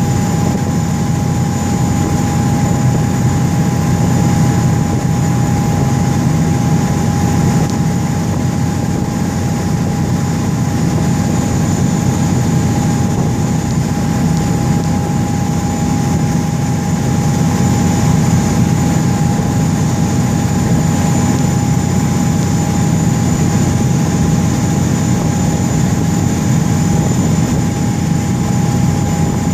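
Cruise boat's engines running steadily under way: a low, even drone with a thin steady whine on top.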